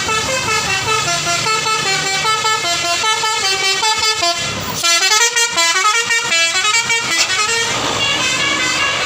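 Bus 'telolet basuri' musical horn playing a fast melody of stepped notes, with a short break about five seconds in before another quick run of notes.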